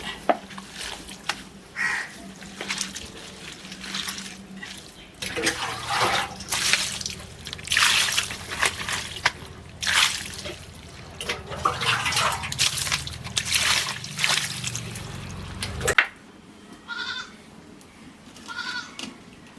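Water splashing and sloshing in irregular bursts as raw goat intestines are washed by hand, over a steady low hum that stops about 16 seconds in.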